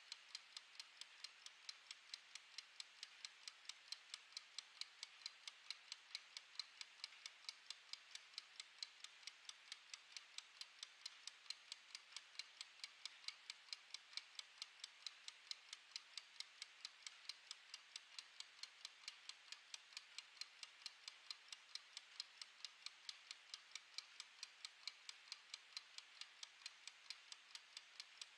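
Mechanical wind-up kitchen timer's clockwork movement ticking, faint, quick and perfectly even, several ticks a second, while it counts down.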